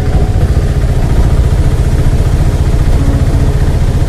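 Heavy monsoon rain hissing over a loud, constant low rumble.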